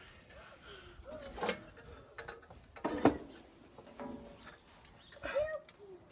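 Metal clanks and knocks from tools and parts during repair work on a forklift's steering gear, the loudest two a little after one second and around three seconds in, with several short rising-and-falling animal calls between them.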